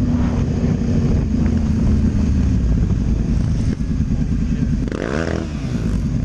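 Motorcycle engine running, with a brief rise and fall in pitch about five seconds in.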